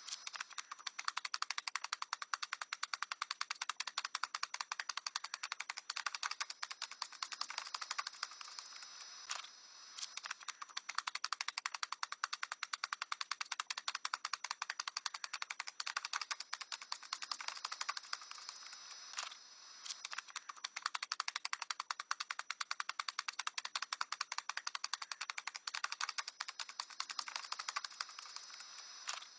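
A parrot tapping: a rapid, continuous run of small sharp clicking taps, in stretches of about ten seconds broken by short pauses.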